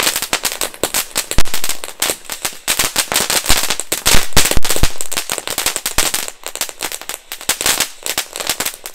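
Ground firework fountain spraying sparks with loud, dense, rapid crackling, many sharp cracks a second.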